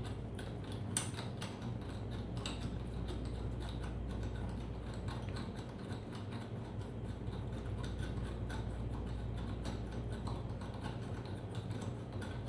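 Faint small metal clicks and taps as the quick-release mount's threaded stud is handled and slid through the hole in a steel bracket, over a steady low hum.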